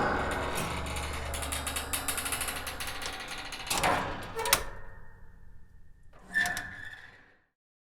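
Old wooden attic door creaking as a dense run of rapid, ratchet-like clicks, then two separate knocks and a last knock with a short ring.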